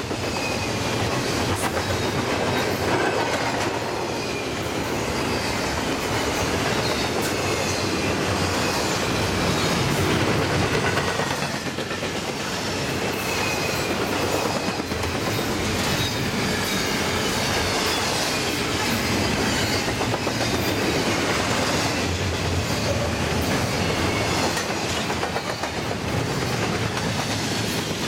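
Double-stack container well cars of a freight train rolling past at speed, with a steady rumble and clickety-clack of wheels over the rail joints. Faint high wheel squeal comes and goes.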